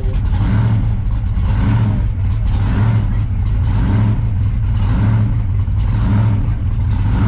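Supercharged V8 of a blown 1957 Chevrolet gasser running, a loud steady low drone that swells slightly at a regular pace.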